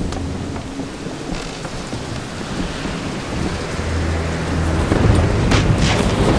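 Heavy rain pouring down with a low rumble of thunder, the storm growing louder about five seconds in.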